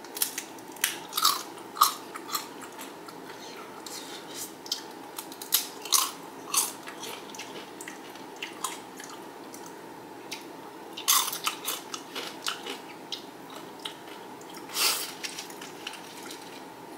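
Xxtra Flamin Hot Doritos tortilla chips being bitten and chewed, crisp crunches in clusters with quieter chewing between. The crunching is busiest in the first two seconds and comes again about six, eleven and fifteen seconds in.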